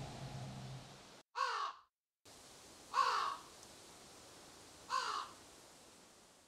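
A crow cawing three times, about two seconds apart, each caw short and dipping in pitch. The tail of a music chord fades out in the first second.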